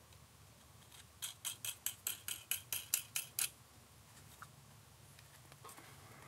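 A run of about a dozen light metallic clicks, about five a second, as a small nut is spun by hand down the threaded brass shank of a speaker binding post onto its lock washer.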